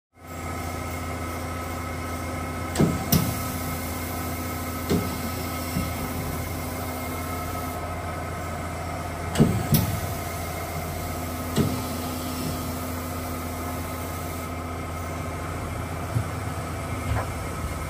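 Hitachi Seiki HS630 horizontal machining center running under power: a steady low hum with a few steady higher tones, broken by several sharp metallic clunks at irregular intervals.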